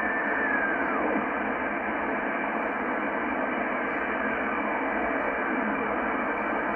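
Shortwave static from a Yaesu FTdx10 transceiver in upper sideband as the dial is tuned up the band. A steady whistle from the German weather fax signal drops in pitch and fades about a second in, and a fainter whistle glides down a few seconds later.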